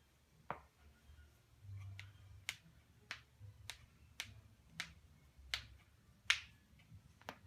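Faint finger snaps on a steady beat, a little under two a second, over a low bass: the opening of a hip-hop track.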